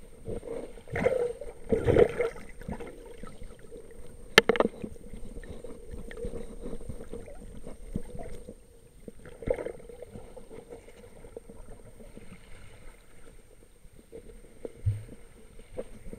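Muffled underwater handling noise from a camera in its waterproof housing: irregular water sloshing and bumps, one sharp click a little over four seconds in, and a couple of short low thumps near the end, over a faint steady hum.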